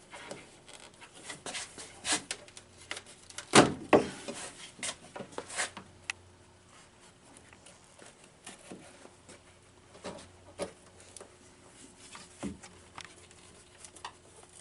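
Clicks, knocks and rubbing of a Mercedes-Benz W123's amber turn signal lens assembly being worked by hand and pushed straight forward to free it from its mounting. The sounds come thickest in the first few seconds, with one loud knock, then as a few scattered clicks.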